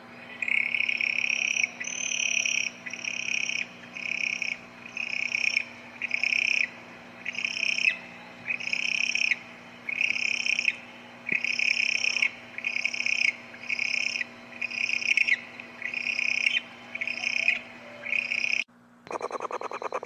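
An owl giving a series of short, high-pitched calls, one roughly every second, about eighteen in all. About a second before the end it cuts to a different harsh, noisy sound.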